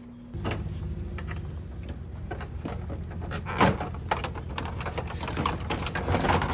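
Plastic retaining clips on a Toyota Tacoma grille clicking and snapping loose as the grille is worked free of its surround, with plastic creaking and rattling; one louder snap about three and a half seconds in. A low steady hum sits underneath from about half a second in.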